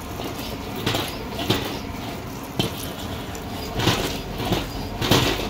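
Eggs frying in hot oil in an iron wok, a steady sizzle, with a steel ladle knocking and scraping against the wok several times.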